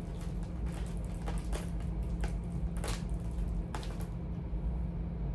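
Charging cords being handled and sorted: scattered rustles and small clicks of cables and plugs, over a steady low hum.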